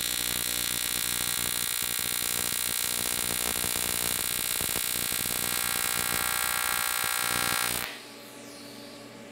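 AC TIG welding arc on aluminum from a PrimeWeld 325X, buzzing steadily at a fixed pitch, then cutting off abruptly about eight seconds in when the arc is broken. The arc is wandering and spitting off to one side because of a ball on the end of a poorly shaped tungsten.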